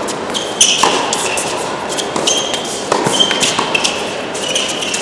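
Tennis rally on an indoor hard court: rackets striking the ball and the ball bouncing, heard as sharp knocks every second or so, with several short high squeaks from players' shoes on the court. The hall's echo is around it all.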